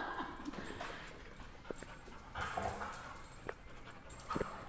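Two dogs playing close up, making soft dog sounds, with a few scattered sharp taps such as paws and claws striking the floor.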